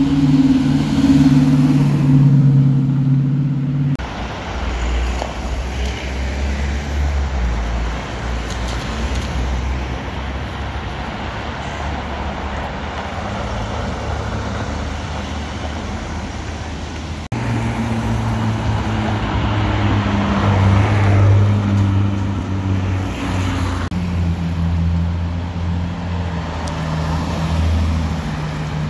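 Sports car engines running at low road speed, one car after another with abrupt changes about four and seventeen seconds in: first a TVR V8 with a steady low burble, then a Porsche 911 Cabriolet as a lower rumble, then a Ford Mustang with a steady low engine note.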